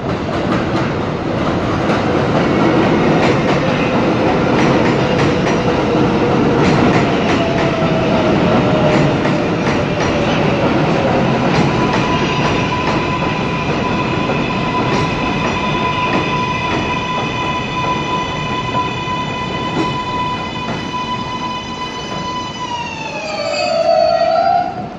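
R188 subway train arriving at an elevated station: wheels rumbling on the rails with clicks from the rail joints, then a steady electric whine that slides down in pitch as the train brakes to a stop near the end.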